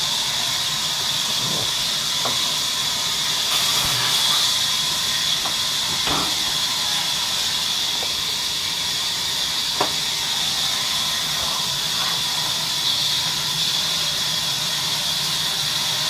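Large sawmill band saw running with a steady, loud hiss and a faint steady whine, with a few light knocks of logs being handled.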